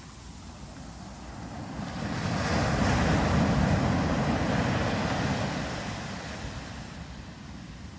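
Ocean surf on a sandy beach: a wave's rush swells up about two seconds in, is loudest for a couple of seconds, then fades away.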